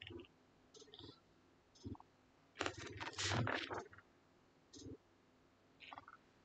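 Scattered light clicks and taps, with a denser run of clicks and scratches about three seconds in.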